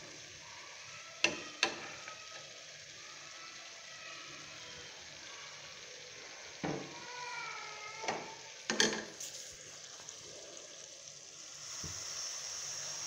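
Faint sizzling of chopped capsicum and minced meat frying in an aluminium pot, with a few sharp clicks of the metal ladle against the pot, about a second in and again near nine seconds. The sizzle grows louder near the end.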